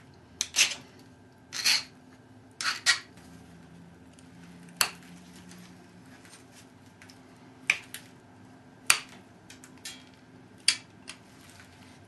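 Pressure flaking a chert Dalton point with a copper-tipped hand flaker, the point held on a leather pad: irregular sharp clicks and snaps as the tool presses on the edge and flakes pop off, with a few short scrapes.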